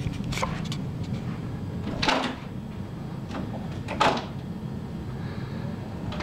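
A closed interior door's lever handle and latch rattling and knocking about five times, loudest about two and four seconds in, as a cat on the other side jumps at and pulls the handle to open the door.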